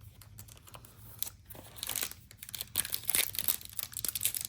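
A trading card pack's plastic wrapper being handled and torn open, crinkling: a few light clicks at first, then crackling that gets louder and denser from about two seconds in.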